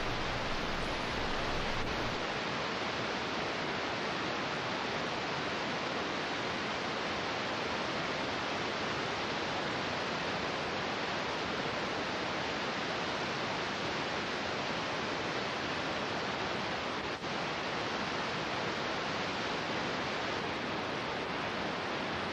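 Steady, even hiss of recording noise, with no distinct sounds standing out of it.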